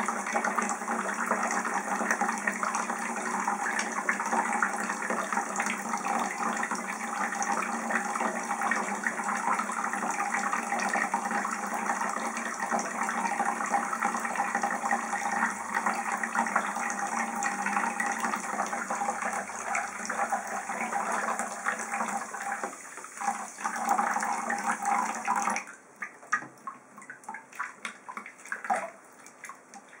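Bathroom sink faucet running steadily into a basin of water, with hands splashing as a pigeon is rinsed under the stream. The tap is shut off abruptly near the end, leaving small splashes and drips in the basin.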